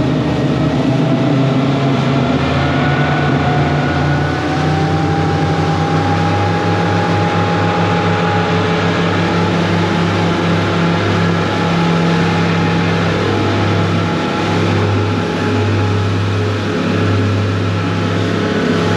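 Motorboat engine running steadily under way.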